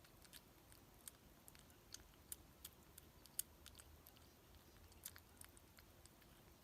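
Kitten eating, close up: soft, irregular chewing clicks and small crunches, the sharpest about three and a half seconds in.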